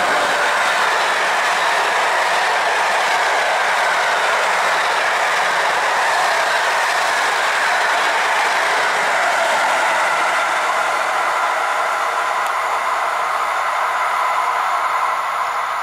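PKP Intercity passenger coaches of a TLK train passing close at speed: a steady, loud rolling noise of wheels on rail, easing off slightly near the end.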